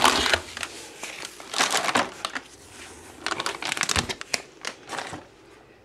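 Foil supplement sample packets crinkling and rustling as they are handled and pushed aside in a cardboard box, in irregular bursts, with a sharp knock about four seconds in.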